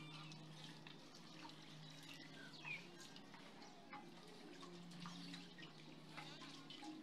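Near silence: faint background with a low steady hum and a few faint short chirps and clicks.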